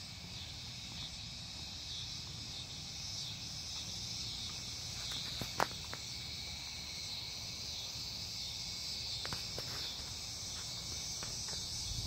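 Steady, high-pitched evening insect chorus, with a few sharp clicks; the loudest click comes about five and a half seconds in.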